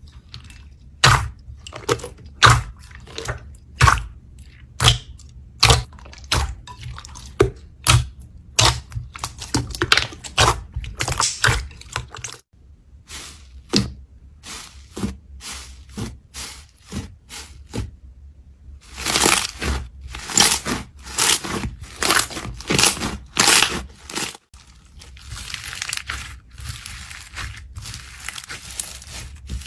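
Slime being pressed and squeezed by hand, giving sharp crunchy pops and clicks about once or twice a second. A denser run of loud pops comes about two-thirds of the way in, and a softer, finer crackling follows near the end. The sound changes abruptly twice.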